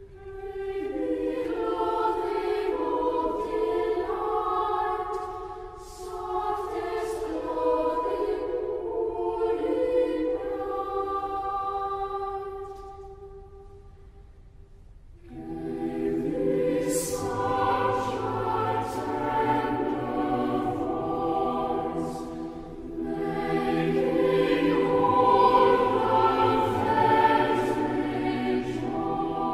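A choir singing slow, sustained music. Higher voices carry the first half and fade about two-thirds of the way to the middle; then a fuller passage begins halfway through, with low bass voices joining.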